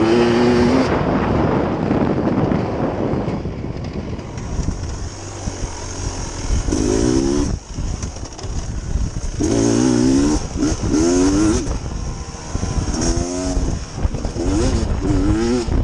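Dirt bike engine revving up and down again and again as it is ridden along a trail, its pitch rising and falling every second or two.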